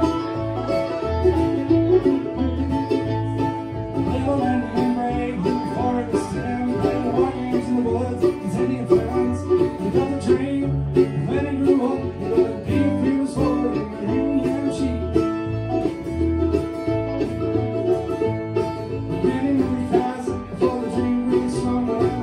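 Bluegrass band playing an instrumental passage, banjo and guitar picking over a steady low pulse.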